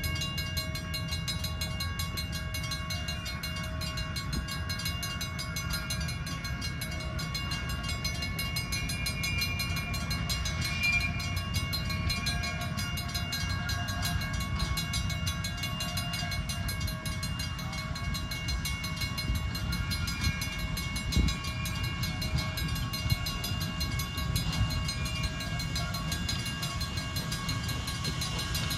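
Railroad crossing signal's FS mechanical bells ringing steadily: a fast, even hammering of gong strikes over a low, steady rumble.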